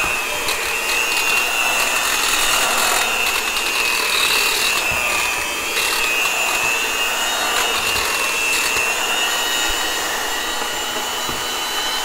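A small electric motor running steadily at one speed, with a high-pitched whine over a rushing hiss.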